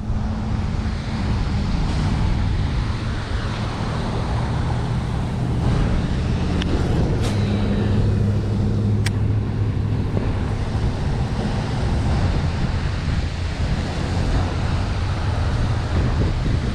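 Steady road traffic noise with a continuous low engine hum, and two brief sharp clicks about halfway through.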